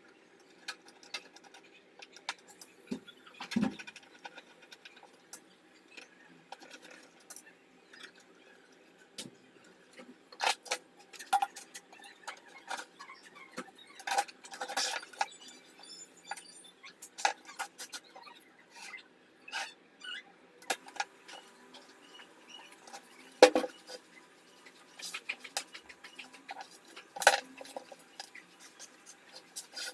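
Irregular clicks, taps and scrapes of small hard parts being handled, with a sharper knock about two-thirds of the way through, over a faint steady hum.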